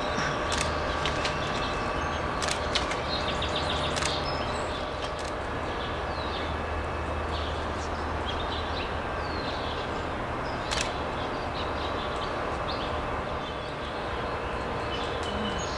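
Outdoor ambience: a steady low rumble with faint bird chirps and scattered light clicks and knocks.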